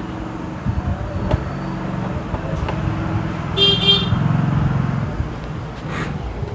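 Road traffic with a vehicle engine running past, and a horn giving two short toots about three and a half seconds in.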